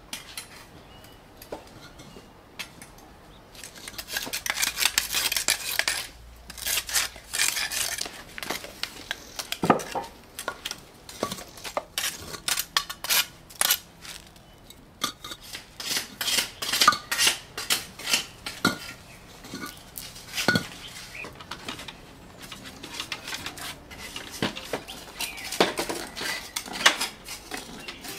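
Garden tool scraping through soil and knocking against concrete blocks, with metallic clinks: a dense run of scraping early on, then scattered sharp knocks and scrapes.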